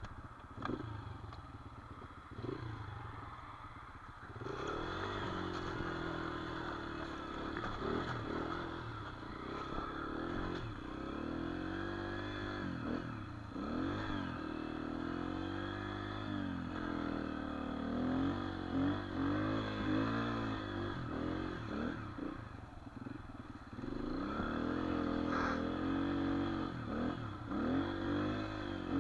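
Dirt bike engine being ridden through snow, its pitch rising and falling repeatedly with the throttle. It is quieter for the first few seconds and picks up about four seconds in.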